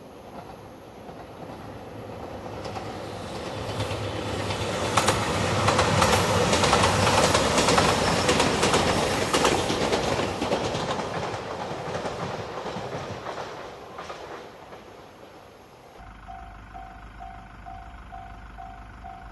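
JR Shikoku Nanpu limited express, a diesel train, passing close by: the rumble builds, peaks with rapid clicking of wheels over the rail joints, and fades away. Near the end a level crossing warning bell starts abruptly, a repeating electronic ding about twice a second.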